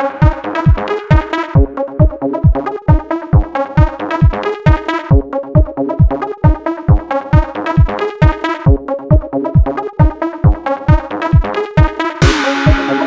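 Electronic dance music with a steady kick drum at about two beats a second under a busy synthesizer pattern; a wash of noise and a held synth note come in near the end.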